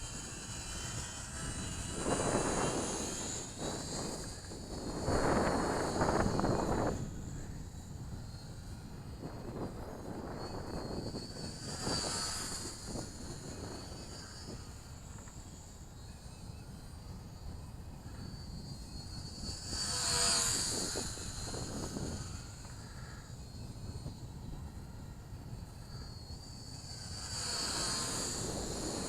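Twin electric motors and propellers of a micro RC P-38 model plane whining in repeated low passes, the high whine swelling and fading about four times as the plane comes by. A couple of seconds in, gusts of wind rumble on the microphone.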